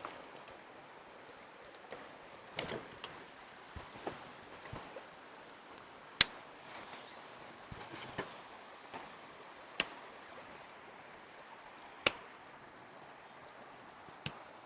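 A few sharp knocks and clicks a few seconds apart, the loudest three about 6, 10 and 12 seconds in, over a faint steady hiss.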